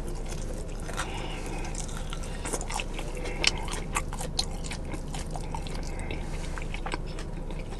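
Close-up mouth sounds of a man eating sauce-coated fried chicken wings: chewing with many short wet smacks and clicks, irregular throughout.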